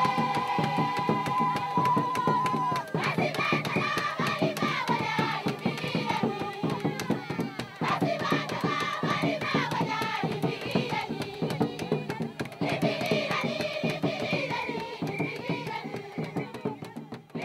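A group of women singing together to a steady beat of rhythmic percussion. It opens on a long held note of about three seconds, then the voices move through many changing notes.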